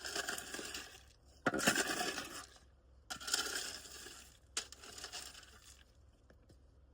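Loose stones rattling and crunching against each other in four bursts of about a second each, as they are scooped, shifted or poured; the rattling stops about six seconds in.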